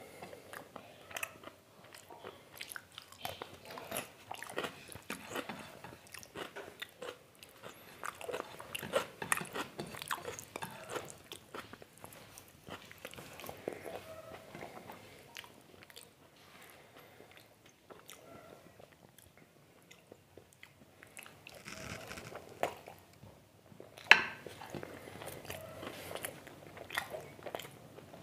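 Close-miked chewing and wet mouth smacking of a person eating mutton curry and rice by hand, with crunching bites. It goes quieter for a few seconds past the middle, and there is one sharp click about three quarters of the way through.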